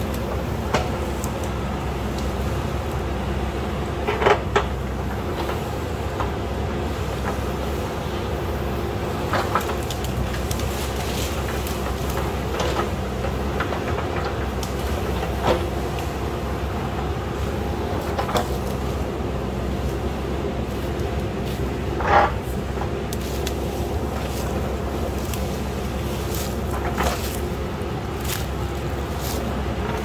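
JCB backhoe loader's diesel engine running steadily under hydraulic load while the backhoe digs, with short sharp clanks and squeaks from the bucket and arm linkage every few seconds, the loudest about twenty-two seconds in.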